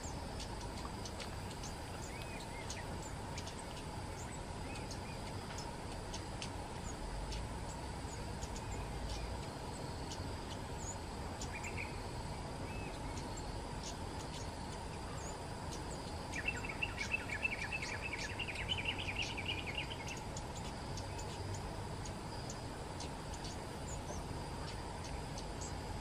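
Flowerpecker calling: sharp high ticks scattered throughout, with a rapid chattering run of notes in the middle lasting about three and a half seconds, over a steady drone of insects.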